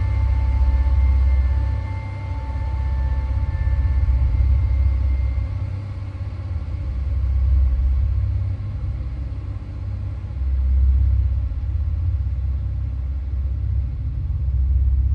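A deep, low rumbling drone that swells and fades every three to four seconds. Two faint steady high tones hang over it and fade out in the first few seconds, like an eerie added sound bed.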